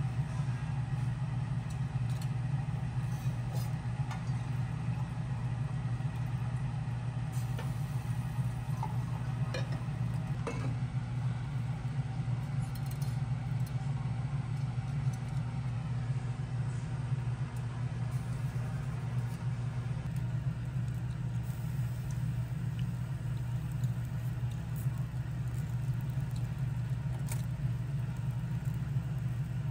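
Table-top automatic rotating kebab grill running with a steady low hum, with a few faint metallic clicks from the turning skewers.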